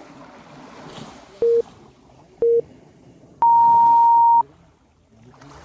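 Workout interval timer counting down: two short low beeps a second apart, then one long higher beep lasting about a second, the usual signal to start the next exercise interval. Sea waves wash steadily underneath.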